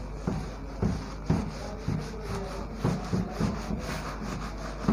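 Whiteboard being wiped clean by hand: a rapid series of rubbing strokes across the board, about two a second, erasing marker writing.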